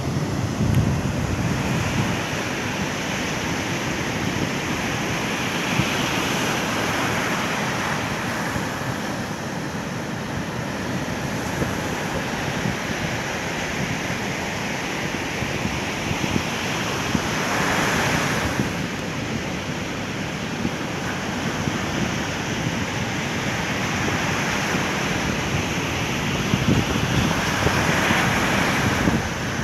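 Ocean surf breaking on a sandy beach: a steady rushing wash that swells louder each time a wave crashes, several times over. Wind rumbles on the microphone underneath.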